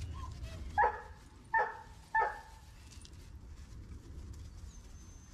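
Giant Schnauzer puppy barking: three short, high barks about two-thirds of a second apart, starting about a second in.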